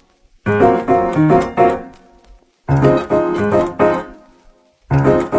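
Background music: a keyboard riff played in three short phrases of quick, bright chords, each about a second and a half long with a brief pause between them.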